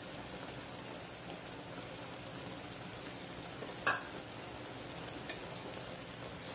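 Pan of river prawns and petsay cooking over the heat: a steady sizzling hiss, with a sharp crackle about four seconds in and a fainter one a little after five seconds.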